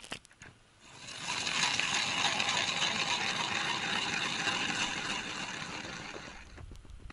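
Hand ice auger fitted with freshly changed blades cutting into lake ice: an even, scratchy crunching scrape that starts about a second in and fades away near the end.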